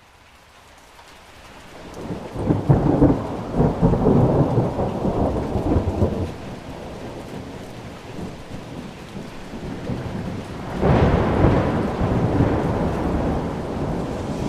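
Thunder rumbling over steady rain. One roll builds up over the first two seconds and rumbles for about four seconds before easing back to the rain. A second clap breaks in suddenly about three-quarters of the way through and keeps rolling.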